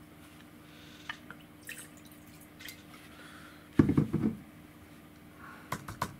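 Wine glasses and bottles being handled on a table: light clicks and taps, with a louder knock about four seconds in.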